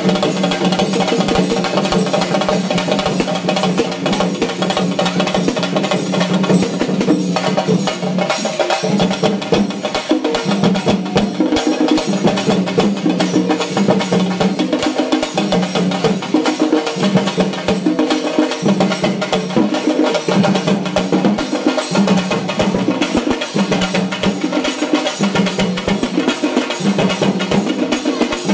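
Music of fast, dense drumming over a steady droning tone.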